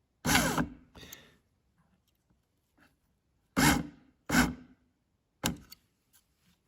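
Brushed electric motor of a 2009 Honda Civic i-SHIFT gearbox actuator, bench-tested with probes on its wires, runs in five short bursts of under a second each. The actuator moves again after its brushes and rotor were cleaned.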